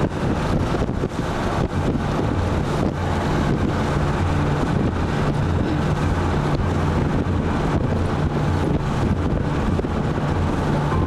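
Motor vehicle driving along a dirt road, heard from aboard: a steady engine hum with wind noise on the microphone and frequent short knocks and rattles as the vehicle jolts.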